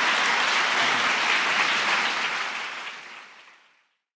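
Audience applauding, a dense even clapping that fades away over the last second and a half.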